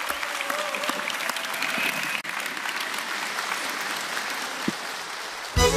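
Studio audience applauding steadily. Just before the end a folk band led by an accordion suddenly strikes up.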